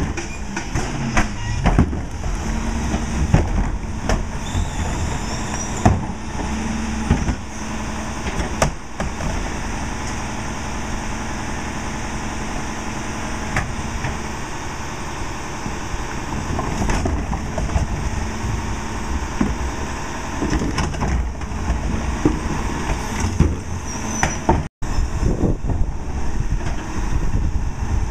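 Rear-loader garbage truck's diesel engine running at idle while its cart tippers lift and empty wheeled plastic carts into the hopper, with repeated knocks and clatter of the carts against the tipper and hopper.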